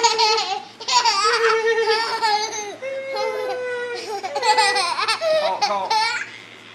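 Toddler laughing in repeated high-pitched bursts, with one longer drawn-out note about three seconds in; the laughter stops near the end.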